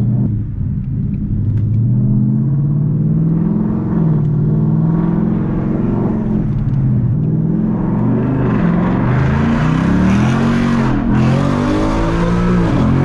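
Straight-piped Ford Mustang's engine and exhaust pulling hard through the gears, heard from inside the cabin. The pitch climbs and drops back several times as it shifts, and it gets louder and fuller about two-thirds of the way in.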